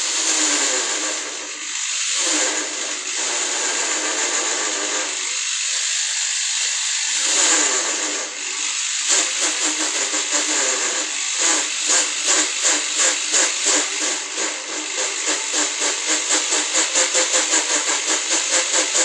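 Power drill running loud and harsh, with a brief drop-off a few times early on and a rapid, even pulsing, about three to four pulses a second, through the second half.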